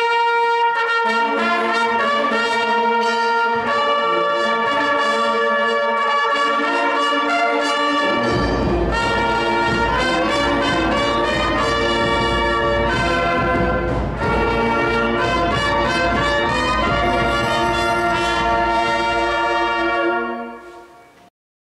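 Brass band of trumpets, flugelhorn and clarinet playing held chords in a church. A deep bass part joins about eight seconds in, and the music dies away just before the end.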